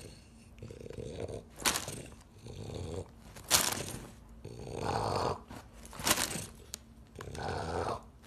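French bulldog's noisy breathing through its short nose, coming in several swelling bouts, with three sharp short bursts of noise between them.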